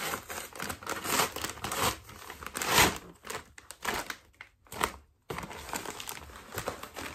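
Brown kraft-paper mailer being torn open and crinkled by hand: irregular rustles and rips, the loudest about three seconds in, with a brief break just after five seconds.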